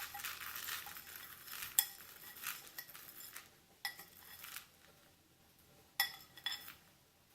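Whole coffee beans being poured out and rattling into a container, a dense patter that stops about a second and a half in, followed by scattered sharp clicks and taps, with two more clicks about six seconds in.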